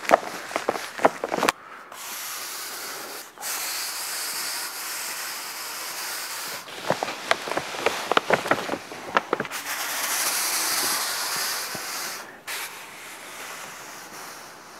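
Dry polymeric sand pouring from a bag onto concrete pavers: a steady hiss in several stretches, broken by abrupt cuts, with clusters of shoe scuffs and clicks on the pavers between them. Near the end a softer scraping as a push broom spreads the sand.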